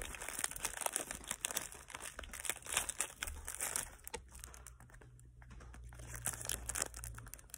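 Paper cookie bag crinkling as it is handled and turned over in the hands, in dense bursts that thin out past the middle.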